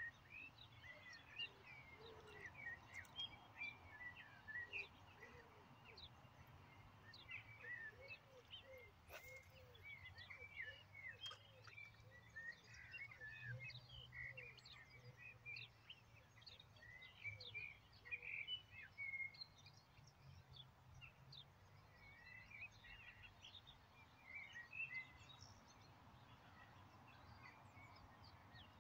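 Faint birdsong: many short chirps and trills from several small birds, with a run of lower repeated notes, about two a second, in the middle. Under it is a faint steady low hum.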